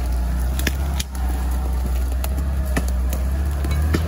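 UAZ off-roader's engine running steadily at low revs as it crawls through forest undergrowth, with scattered sharp clicks.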